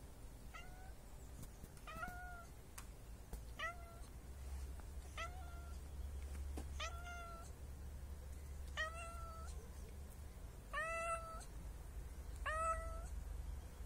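Tabby cat meowing eight times, short calls that rise and then level off, coming about every one and a half to two seconds and growing louder toward the end.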